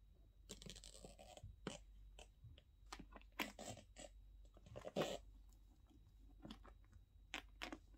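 Faint handling noise from a leather-trimmed canvas handbag being turned over in the hands: scattered soft clicks and brief rustles from the bag and its gold chain strap, the loudest about five seconds in.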